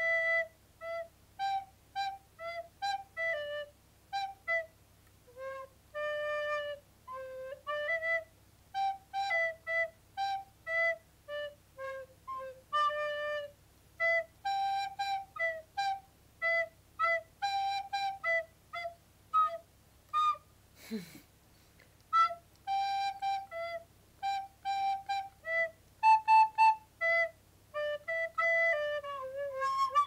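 A recorder playing a simple, halting melody of short, separately tongued notes with small gaps between them. A few notes are held longer, and near the end it runs quickly down through several notes.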